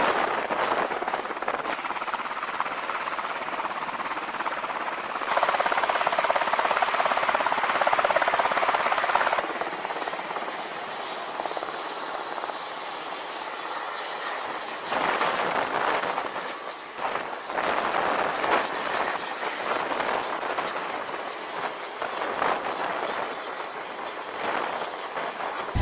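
Sikorsky MH-60 Seahawk helicopter lifting off and flying away: a dense rushing of rotor and turbine noise that rises and falls in level.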